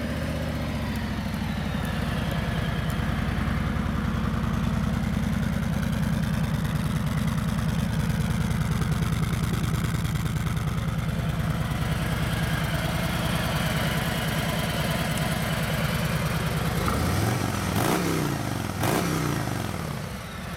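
2018 Harley-Davidson Street Glide Special's 107-cubic-inch Milwaukee-Eight V-twin idling steadily through its factory exhaust. Near the end the throttle is blipped twice, the engine revving up and dropping back to idle each time.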